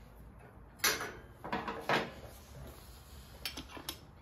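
Clinks and knocks of hand tools and small parts being handled: a sharp knock just under a second in, two more clatters around the two-second mark, and a few lighter clicks near the end.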